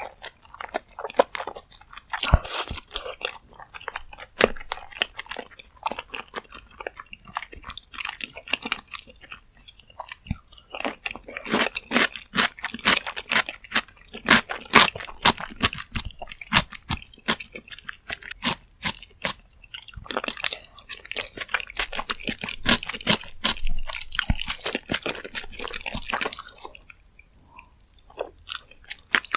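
Close-miked eating sounds: chewing and biting rose jjimdak and its flat glass noodles, with many quick wet mouth clicks and some crunching.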